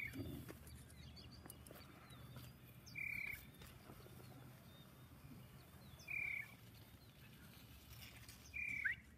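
A bird's short, high, steady note, repeated about every three seconds, three times, the last one falling off at the end, over a faint low outdoor hum.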